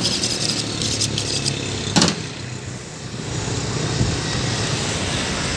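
Street traffic running steadily in the background, with quick scraping strokes of a knife drawn along a honing steel in the first second and a half, and one sharp knock about two seconds in.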